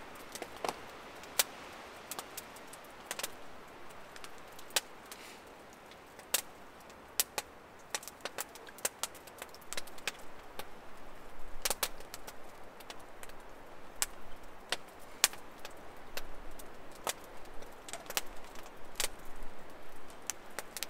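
Wood campfire crackling, with sharp irregular pops over a faint steady hiss; the pops come more often in the second half.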